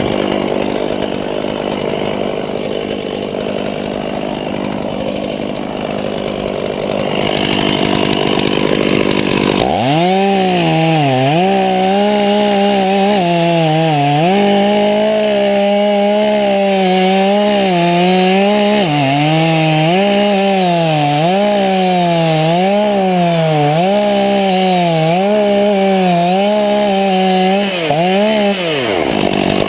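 A loud, dense noise fills the first ten seconds or so. Then a chainsaw's two-stroke engine revs up, holds a high whine with pitch dips about once a second as it bogs in the cut, and falls away near the end.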